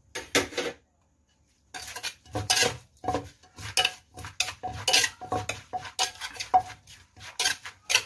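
Wooden pestle pounding and a spoon tossing papaya salad in a clay mortar (som tam being pounded and mixed): a quick run of knocks, about two to three a second. The knocks pause briefly about a second in, then start again.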